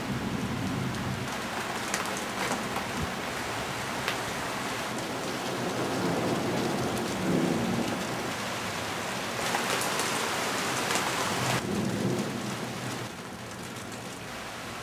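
Thunderstorm: steady rain hiss with low rolls of thunder rumbling several times. The rain grows louder for about two seconds past the middle and eases near the end.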